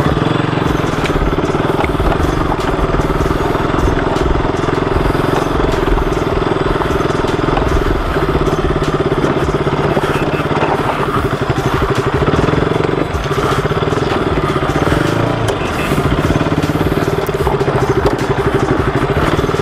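KTM RC sport bike's single-cylinder engine running steadily as the bike is ridden down a rocky dirt track.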